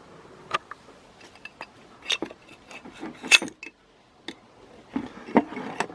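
Metal clinks and knocks from a DC motor's housing as its two halves are worked apart by hand: a scatter of sharp clicks, the loudest a little past halfway, with another cluster near the end.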